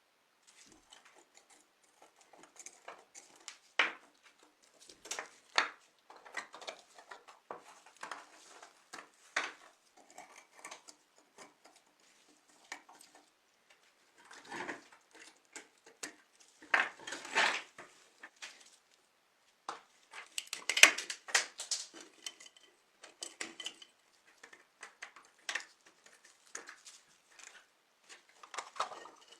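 Small metal tools and toy car parts clinking, tapping and scraping in irregular bursts, with the loudest clatter about two-thirds of the way through.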